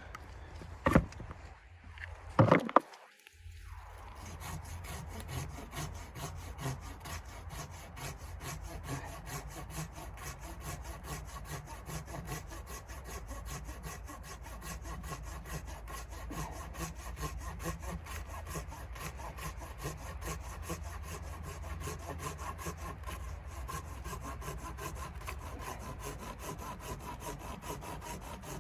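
A few sharp knocks, then a continuous dry rasping scrape.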